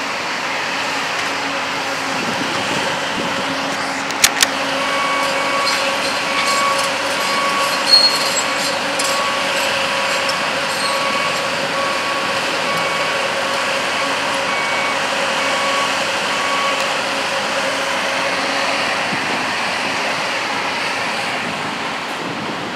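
Heavy construction machinery running with a steady diesel drone, while a reversing alarm beeps over and over from about five seconds in until past the middle. Two sharp metallic clanks come about four seconds in, and another near eight seconds.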